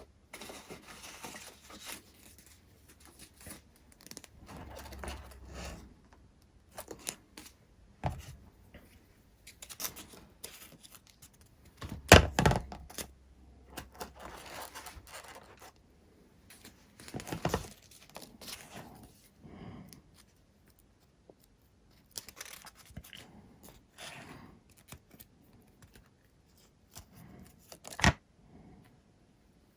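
Hand-work sounds on a workbench while repairing a foam RC plane: scraping, rustling and tearing with scattered knocks, the loudest about twelve seconds in and a sharp one near the end.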